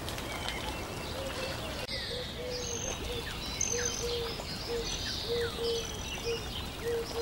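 Birdsong: several birds chirping with quick falling whistles over a run of short, low, evenly pitched notes, above a steady hiss that thins out about two seconds in.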